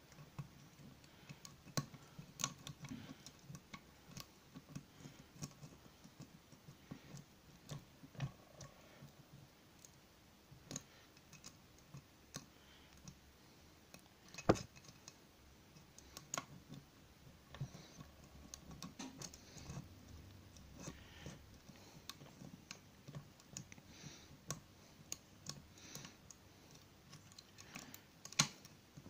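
Lock picking in a 75mm shutter padlock with a flat wiper-insert tension wrench: faint, irregular small metallic clicks and scrapes of the tools and pins in the keyway, with a sharper click about halfway through and another near the end.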